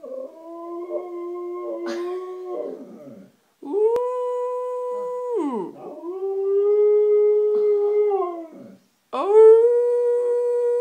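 A Siberian husky–Samoyed mix dog howling: a series of long howls, each held on one pitch for two to three seconds and then sliding down at the end.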